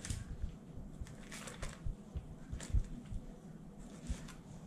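Knife making small cuts through a walleye's flesh along the rib cage, with brief rustles of the newspaper under the fish a few times and scattered soft low knocks from handling on the counter.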